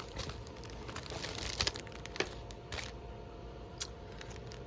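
Faint rustling of packaging and craft supplies being handled, with scattered light clicks and taps, the sharpest about one and a half and two seconds in.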